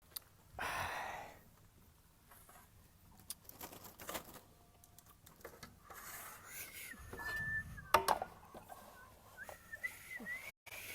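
A person whistling a few wavering notes near the end, with a short held whistle tone about seven seconds in. A puff of breath or air on the microphone about a second in, and scattered light knocks.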